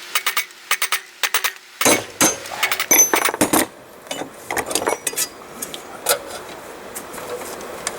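Metal clinks and knocks of blacksmithing tools on the forged railroad-spike steel: a quick run of sharp strikes, densest and loudest about two to three and a half seconds in, then scattered lighter taps.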